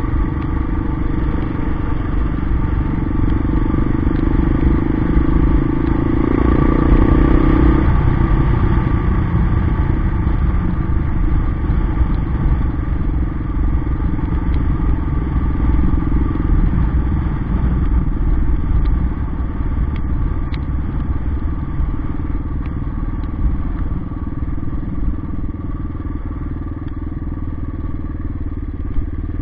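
Yamaha XT 600 single-cylinder four-stroke engine running while the bike is ridden. The engine note is louder and held for a few seconds about a quarter of the way in, then eases back and stays steady.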